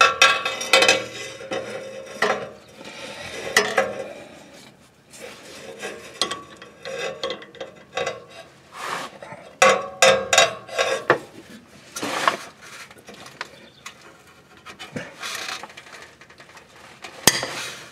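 Steel breaker bar and socket clinking, knocking and scraping against the fill plug and the aluminium front differential case as the bar is fitted and worked to break the fill plug loose. The clinks and scrapes come at irregular times.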